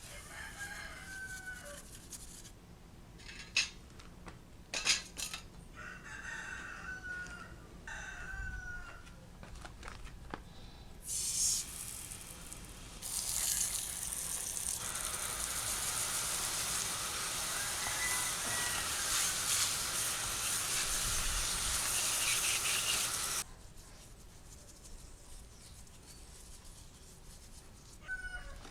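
A rooster crows several times in the background, with a couple of sharp clicks. About halfway through, a loud steady hiss takes over for about ten seconds and cuts off suddenly.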